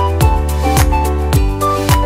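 Background music with a steady beat, a drum stroke about twice a second under a held melody.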